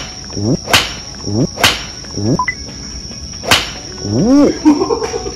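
Sharp cracks of golf clubs striking balls on a driving range, about four in quick succession, with swishing sounds between them that rise and fall in pitch. A steady high trill of crickets runs underneath.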